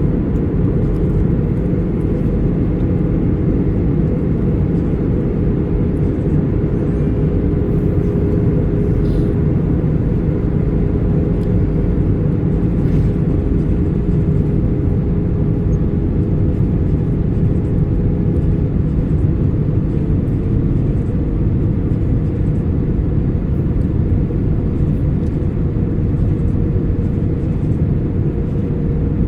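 Steady drone of airflow and engines inside an Airbus A320 passenger cabin, a dense low rumble with a faint steady hum on top.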